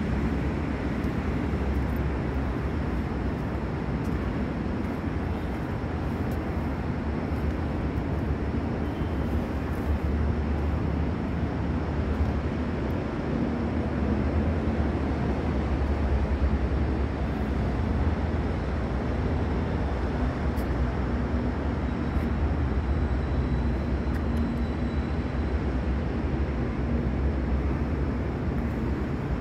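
Steady low rumble of a large building site's background noise, with no distinct single events.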